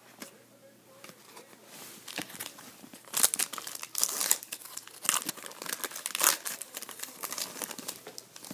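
A hockey card pack's wrapper being torn open and crinkled by hand, in a run of irregular rustling and tearing that gets louder about three seconds in.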